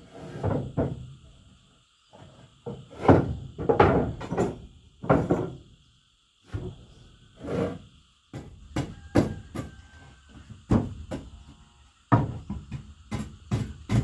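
Hammering: irregular knocks and thuds, with short pauses, turning into quick repeated blows, about three a second, near the end.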